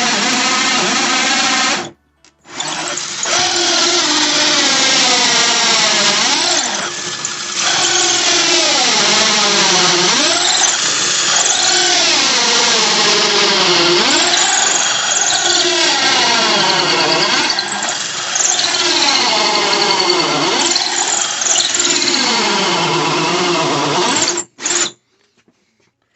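Drill turning a 1.5-inch hole saw as it cuts the deadbolt bore through a door. The motor's pitch repeatedly sags and recovers as the saw bites, and the drill stops briefly about two seconds in and again near the end.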